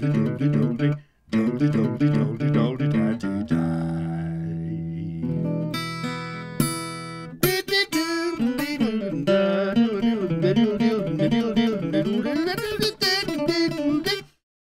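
Acoustic guitar recorded through a Rode NT5 microphone and an Aphex 107 tube mic preamp. It plays ringing chords with brief pauses, then a quick run of single notes from about seven seconds in, and stops shortly before the end.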